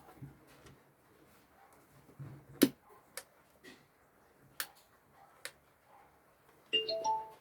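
Sharp plastic clicks, spaced irregularly, as a new portable CD player is handled and its buttons pressed. Near the end there is a brief electronic tone from the unit made of several pitches at once.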